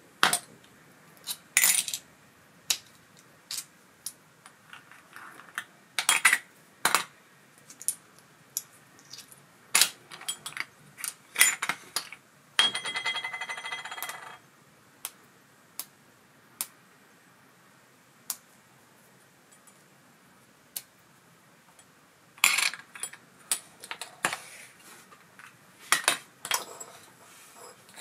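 Small metal parts of an ABU Ambassadeur 4600 CA baitcasting reel clinking and clicking as they are handled and set down during disassembly, in separate sharp taps. About halfway through comes a brief buzzing rattle lasting about a second and a half.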